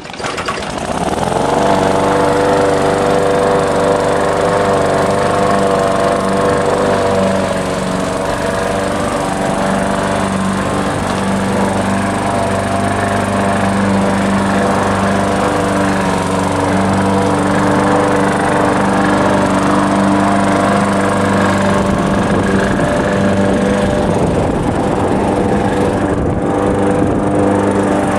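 Walk-behind gas push lawn mower pull-started, its engine catching at once and rising to speed within about a second and a half, then running steadily under load while it is pushed through the grass.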